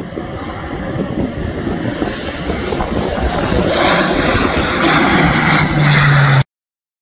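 Beechcraft King Air 300's twin PT6A turboprop engines and propellers as it lands and rolls past on the runway: a rushing engine-and-prop noise that grows louder and brighter as it nears, with a steady low hum joining near the end. The sound cuts off suddenly about six and a half seconds in.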